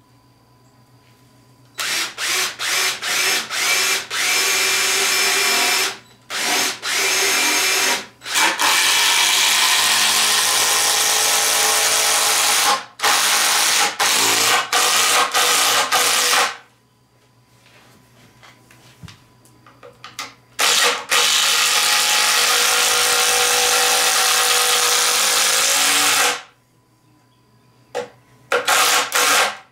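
DeWalt cordless drill driving long 5 to 6 inch screws into a wooden post. A run of short trigger bursts comes first, then several long steady runs of a few seconds each with pauses between, and two short bursts near the end.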